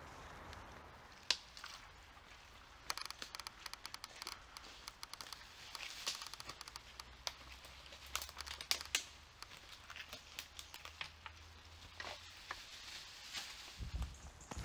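Irregular crinkling and crackling of plastic bottles and plastic bags being handled as litter is picked up.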